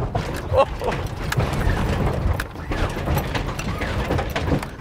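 A lowrider's hydraulic pump motors start suddenly and run loudly as the switch is worked, with clicks and clunks from the car's suspension and body moving. The pumps are a 1980 Chevy Monte Carlo's, fitted with competition motors.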